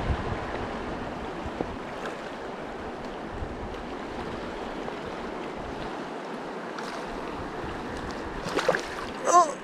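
Shallow, riffling mountain stream rushing steadily over rocks. A brief knock comes at the very start, and a short vocal cry comes near the end.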